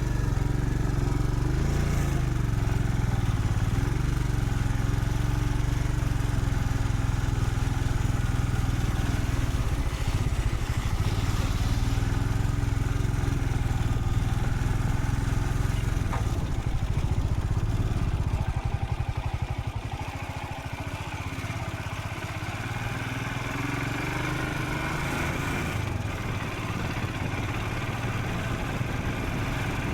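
Royal Enfield Scram 440's single-cylinder engine running under way at a steady speed. About two-thirds of the way through it eases off and gets a little quieter, then the note rises again as it picks up.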